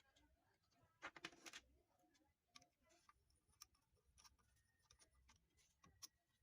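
Near silence broken by scattered faint clicks and small knocks, with a short cluster of them about a second in.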